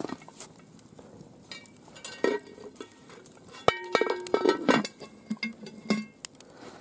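The lid going onto a cast iron cauldron: a sharp metal clank a little under four seconds in that rings for about a second, with a few lighter clinks of metal before and after.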